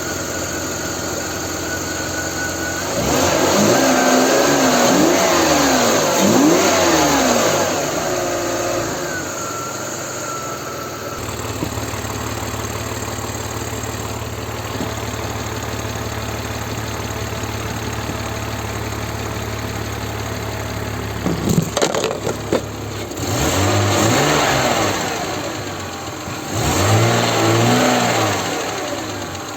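BMW E46 325ci's M54 2.5-litre straight-six idling steadily and being revved in short blips several times: a run of blips early on and two more near the end. A brief cluster of sharp clicks comes just before the last revs. The engine has been treated with lifter additive for a hydraulic lifter tick.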